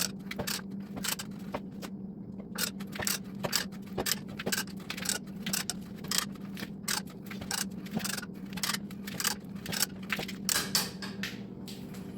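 Ratcheting hand pipe threader working its die along an oiled steel gas pipe. The ratchet clicks with each short stroke of the handle, about two or three clicks a second, with a brief pause about two seconds in.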